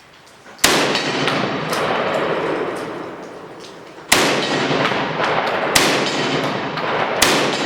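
Benelli M4 12-gauge semi-automatic shotgun firing slugs: four shots, unevenly spaced, the first about half a second in, each followed by a long echo.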